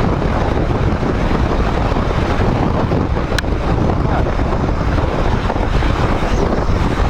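Steady wind rush and low rumble on the microphone of a Royal Enfield Himalayan 411 motorcycle riding at highway speed, with a single faint click about three and a half seconds in.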